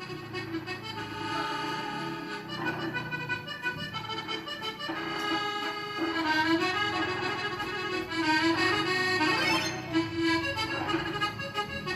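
Accordion music: a melody played over a held low note, growing somewhat louder about six and eight seconds in.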